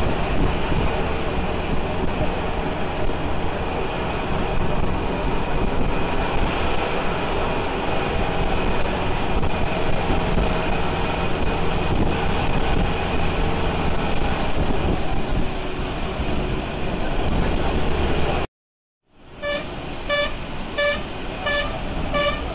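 Steady rumble and road noise of a vehicle driving, heard from inside its cabin. After a brief dropout near the end, a high-pitched horn-like beep repeats about twice a second.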